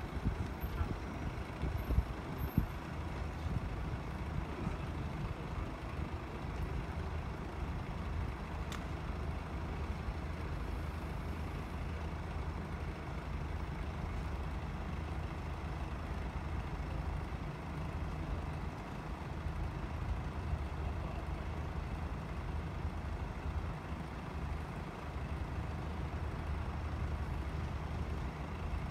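Steady low rumble of road vehicles idling, with a few knocks in the first few seconds and a single sharp click about nine seconds in.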